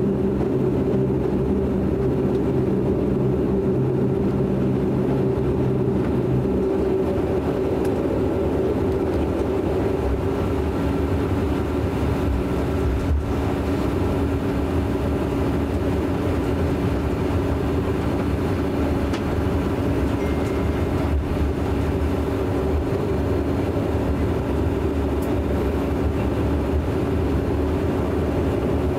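Cabin drone of a De Havilland Canada Dash 8 Q400's Pratt & Whitney PW150A turboprop engines and propellers at taxi power, steady with a few held tones. A lower hum drops out about six seconds in and a different steady tone comes in around ten seconds, as the engine settings change.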